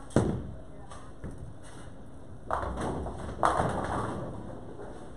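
A bowling ball thuds onto the lane at release, then about two and a half seconds later the pins crash, with a second crash a second later and the clatter dying away.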